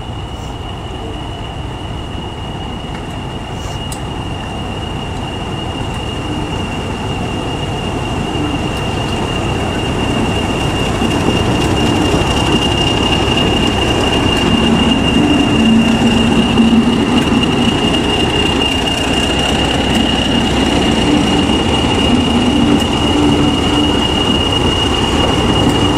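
English Electric Class 40 diesel locomotive drawing slowly past, its 16-cylinder engine rumbling under a steady high turbocharger whistle. The sound grows louder over the first half as it nears.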